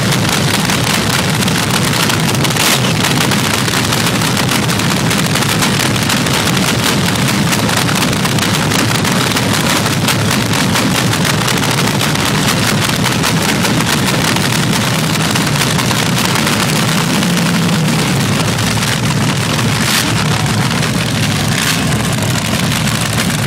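Supercharged nitro-burning engine of an AA/FA fuel altered drag car running loud and steady at idle, with rapid firing pulses and no revving.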